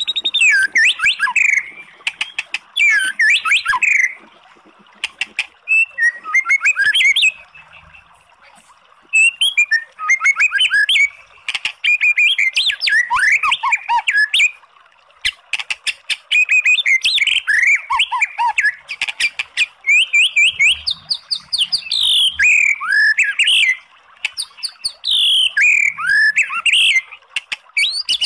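White-rumped shama singing a fast, varied song of loud whistled phrases, rapid trills and clicking notes, delivered in bursts with short pauses between them.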